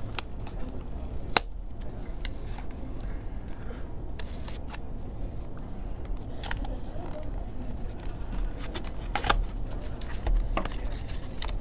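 Cardboard phone packaging being handled and opened: scattered clicks, scrapes and rustles, with sharp snaps about a second and a half in and again near the end.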